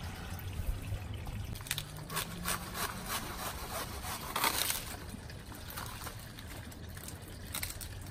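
Cutting through the fruit stalk of a Goldfinger banana bunch with a hand cutting tool, heard as irregular crackles and snaps with rustling, and one louder burst about four and a half seconds in.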